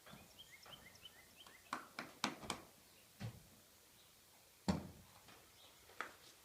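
A horse's hooves knocking and scuffing as its feet are handled: a run of scattered knocks and clunks, the loudest a heavy thump a little before the end. Small birds chirp faintly in the first second or so.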